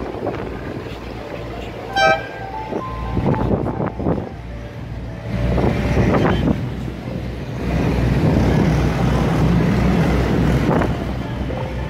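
Tourist river boat's engine running with a steady low rumble, louder in the second half. A brief tooting note sounds about two seconds in.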